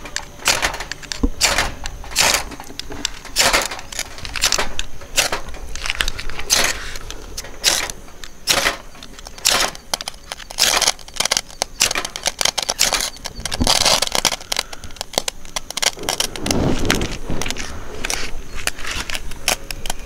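Steel striker scraped down a magnesium fire-starter rod over and over, a short sharp rasp about once or twice a second, throwing sparks at wood-shaving tinder to light it.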